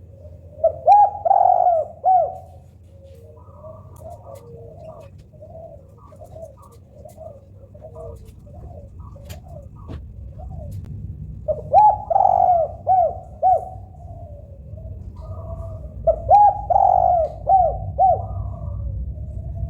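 Spotted doves cooing: three loud, hoarse cooing phrases, about a second in, about twelve seconds in and near the end, with quieter repeated coos between them.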